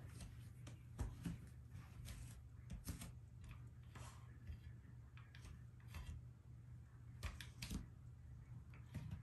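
Faint, irregular clicks and light knocks, a few a second, over a steady low hum.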